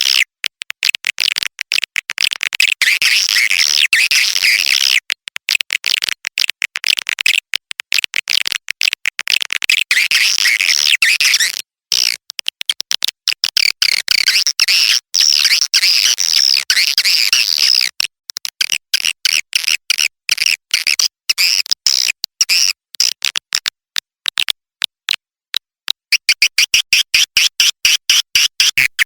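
Swiftlet call recording: dense, rapid, high-pitched twittering chirps of swiftlets, chopped by many short gaps. This is a 'suara panggil' lure call, played to draw swiftlets into a nesting house.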